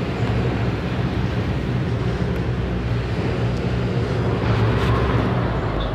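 Mercedes-Benz OF 1519 bus's front-mounted diesel engine running steadily, a low hum with a slight swell near the end.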